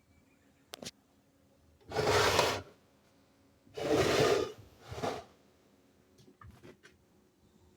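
Handling noise: three short rubbing scrapes, the second and third close together, with a few light clicks around them.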